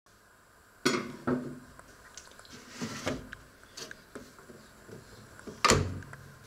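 Several knocks and clatters of a Panasonic microwave oven being handled, loudest about a second in and near the end, where the oven door swings shut with a thud.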